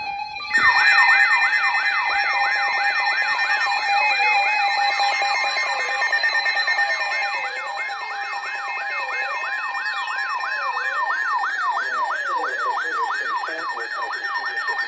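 Electronic emergency sirens layered with steady alert tones. A fast siren rises and falls nearly three times a second over constant tones, with slower, deeper wailing sweeps beneath.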